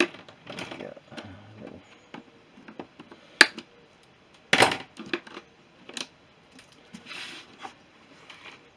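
Handling sounds from unpacking a cordless impact wrench kit: scattered clicks, knocks and rustles of the tool and its packaging being moved. There is a sharp click about three and a half seconds in, a louder clatter just after four and a half seconds, and a rustle a little after seven seconds.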